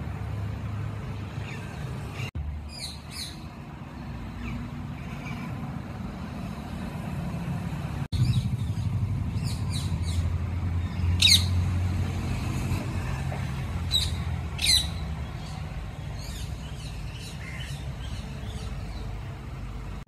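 Scattered short, sharp bird calls, several falling quickly in pitch and most of them past the middle, over a steady low rumble.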